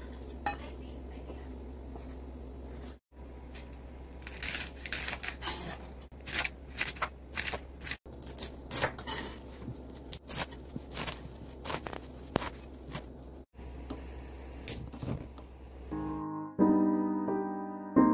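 Chef's knife chopping a bunch of water spinach (kangkong) stems on a wooden cutting board: a run of crisp, irregular cuts, each ending in a knock on the board. Music comes in near the end.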